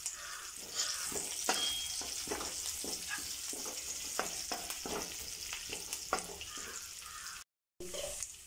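Curry leaves frying in hot oil in a nonstick wok, a steady sizzle, with a metal spatula scraping and tapping against the pan in a run of quick strokes through the middle. The audio drops out briefly near the end.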